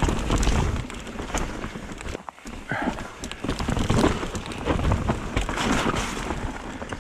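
Mountain bike riding down a rough dirt trail: tyres crunching over dirt and debris, with the bike rattling in scattered clicks over a low rumble on the microphone. The noise eases briefly a little after two seconds in.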